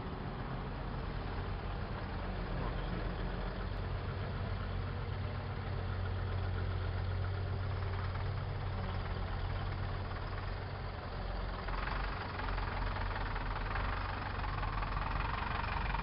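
Diesel engine of a Bizon Z056 combine harvester running steadily as the combine drives slowly past, a steady low drone. From about three-quarters of the way through, a second engine, a tractor pulling up close, joins in louder on top of it.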